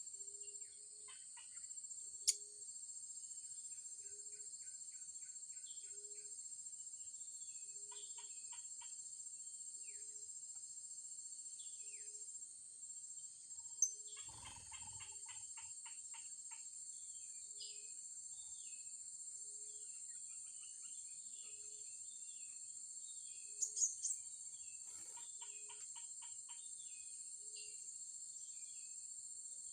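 Steady high buzzing of insects, with a bird's low single hoot repeating about every two seconds and scattered bursts of rapid chirping from small birds. A few sharp clicks stand out, one near 2 seconds, one near 14 seconds and a quick cluster near 24 seconds.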